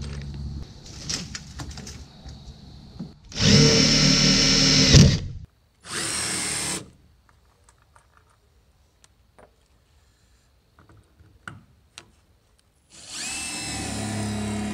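Power drill running in three bursts: a long run of about two seconds, a short one just after, and another near the end, with light taps and clicks of hardware in between.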